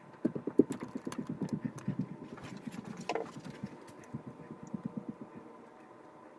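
Eyeglass lenses being rubbed with a cloth close to the microphone: a quick, even run of soft rubbing strokes, about eight a second, that stops about five seconds in.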